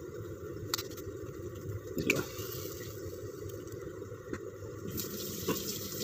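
Steady sizzle of a roti frying in a hot nonstick pan, with a few light clicks. Near the end the sizzle brightens as an egg fries in the hole in the roti's middle.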